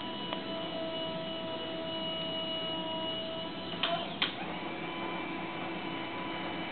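Servo motors of a small robotic arm whining with steady tones as the arm holds and shifts its pose. About four seconds in come two sharp clicks, after which the tones change pitch.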